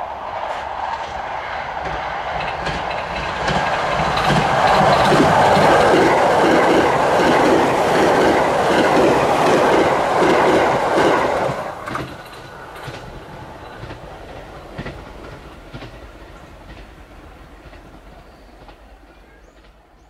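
285 series Sunrise Izumo sleeper train passing at high speed, about 110 km/h: the rush of wheels on rail with rapid clickety-clack over the rail joints. It swells, stays loud for several seconds, cuts off sharply about twelve seconds in as the last car passes, then fades away.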